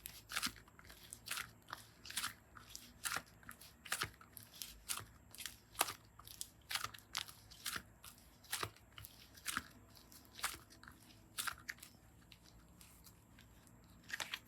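Slime being squeezed and pressed by hand, giving crisp crunchy clicks and crackles about two or three a second; they thin out near the end, with a last quick cluster.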